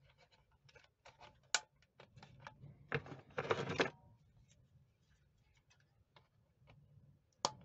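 A plastic zip tie being pulled tight through its locking head: a run of small ratcheting clicks with a denser rasping pull about three seconds in. A single sharp snip near the end as the zip tie's excess tail is cut with side cutters.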